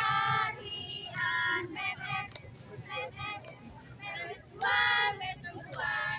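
A squad of schoolgirls singing and shouting a team cheer (yel-yel) together in short, loud phrases with pauses between them.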